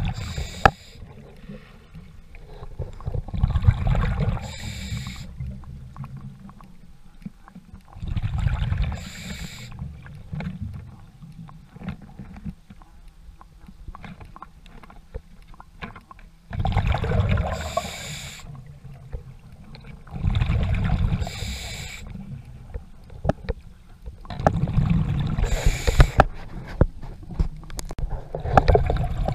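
A diver's breathing heard underwater: bursts of exhaled bubbles, each lasting a second or two, coming roughly every four seconds, with a longer pause in the middle.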